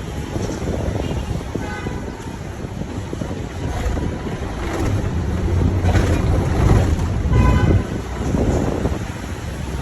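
Road traffic heard while riding in a vehicle: steady engine and road rumble with wind buffeting the microphone, and short horn toots about two seconds in and again near the end.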